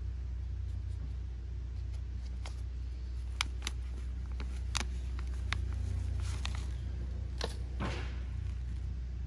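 A flexible plastic nursery pot crackling and clicking as it is squeezed to free a tomato seedling's root ball, a handful of sharp snaps from a few seconds in until near the end. A steady low rumble runs underneath.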